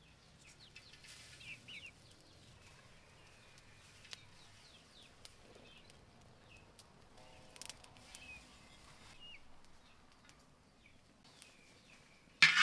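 Birds chirping faintly now and then over a quiet outdoor background, with a few scattered faint clicks. A short loud burst near the end.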